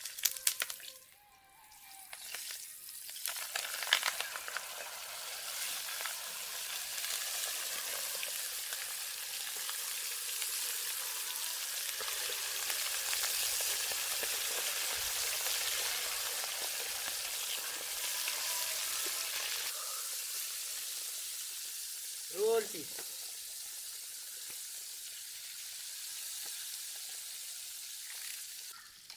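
Marinated catfish skin sizzling as it deep-fries in hot oil in a steel kadai. A few sharp crackles and pops come as it goes in, then it settles into a steady hiss with fine crackle. A brief pitched call cuts in about three-quarters of the way through.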